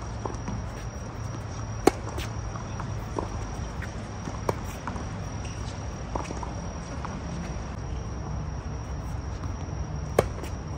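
Tennis balls struck with rackets on an outdoor court: two loud sharp pops about eight seconds apart, with fainter hits between them. Under the hits runs a steady high-pitched hum and a low rumble.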